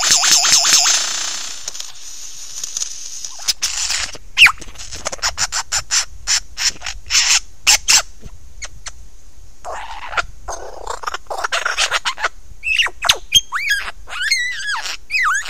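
Lyrebird singing at close range: a varied song of rapid clicking rattles, a long run of sharp clicks, harsh noisy calls, and near the end loud whistled notes that swoop up and down.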